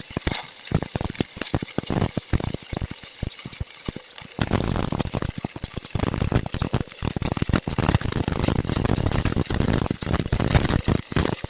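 Electric arc welding: a continuous crackling, sputtering hiss of the arc, growing denser and steadier about four seconds in.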